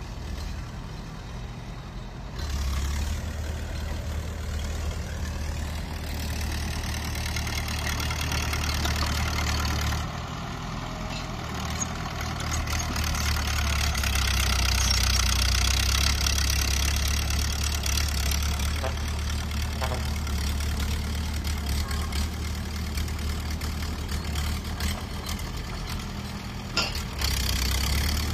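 Bulldozer's diesel engine running steadily, its pitch and loudness rising and falling as it works under load. It is loudest about halfway through and eases off near the end.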